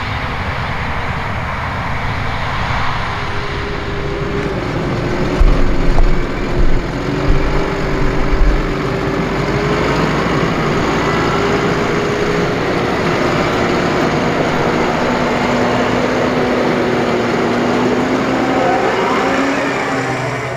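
New Holland tractor towing a baler on a road, its engine running with a steady drone that grows louder as it comes close and passes. A few low buffeting thuds come about five to eight seconds in.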